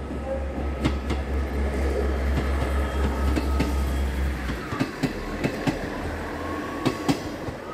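Northern diesel multiple unit running past: a low drone from its underfloor diesel engine that stops about halfway through, then wheels clacking over rail joints as the carriages go by.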